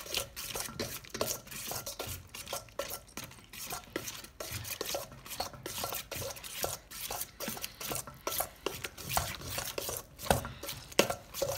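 A metal utensil stirring and scraping through glitter-glue slime in a stainless steel bowl, a fast, irregular run of wet scrapes and clinks against the metal. It is Elmer's Glitter Glue mixed with Elmer's Magical Liquid activator, thickening into slime as it is stirred.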